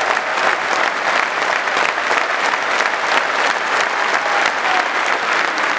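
Stadium crowd of football supporters applauding: dense, steady clapping from thousands of hands.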